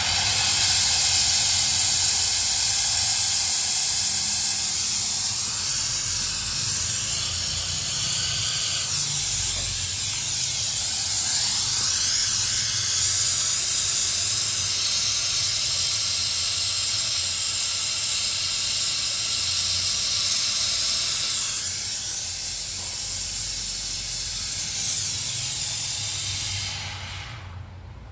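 Gas torch flame hissing steadily while it heats the copper tubing of an opened refrigerator compressor. The hiss stops near the end.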